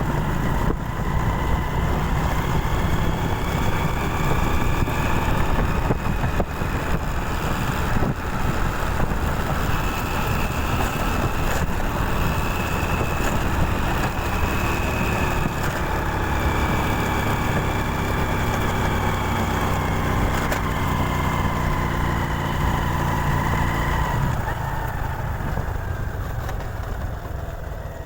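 Small engine of a 110i motorcycle running under way, its pitch slowly rising and falling with the throttle, then dropping away near the end.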